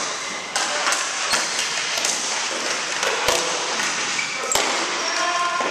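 Hockey sticks and ball knocking on a wooden gym floor during play: a run of about five sharp, scattered clacks, each echoing in the large hall.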